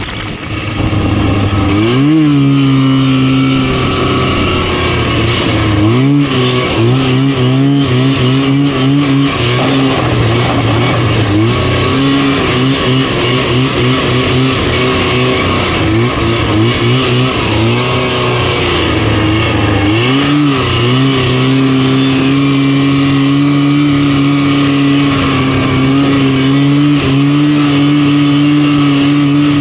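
Rotax 503 two-stroke twin snowmobile engine revving up about two seconds in, its revs wavering up and down through the middle, then held steady at high revs for the last third.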